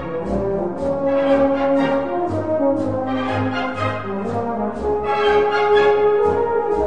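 Brass band music: a march, with horns and other brass over a steady drumbeat.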